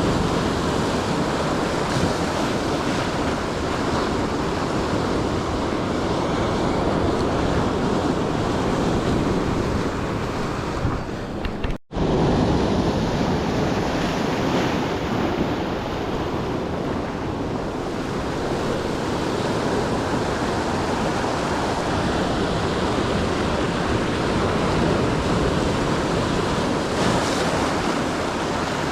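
Ocean surf breaking in a steady wash, with wind buffeting the microphone. The sound cuts out for an instant about twelve seconds in.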